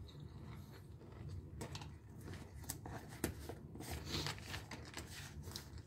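A person chewing a mouthful of dry roasted peanuts: faint, irregular crunches.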